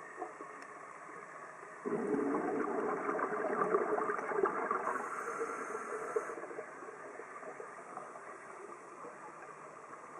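Scuba regulator exhaust bubbles as the diver breathes out: a gurgling rush that starts suddenly about two seconds in and fades over about four seconds, with a faint steady hiss before and after.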